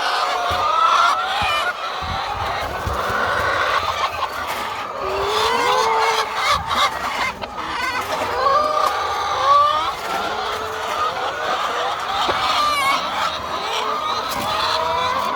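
A flock of laying hens clucking and calling, many birds at once with overlapping squawks and rising and falling cries throughout.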